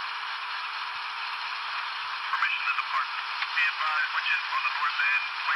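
Paragon 3 sound decoder in an N scale AC6000CW model locomotive playing its radio chatter effect: over a steady hiss, a crew voice starts talking over the radio about two seconds in.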